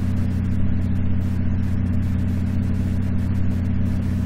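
Steady low hum that does not change, with a faint hiss above it.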